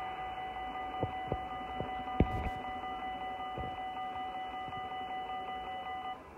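Level-crossing warning bell ringing steadily while the barrier arms lift after the train has passed. A few short knocks come in the first four seconds, the loudest about two seconds in. The bell cuts off just after six seconds, as the barriers reach the upright position.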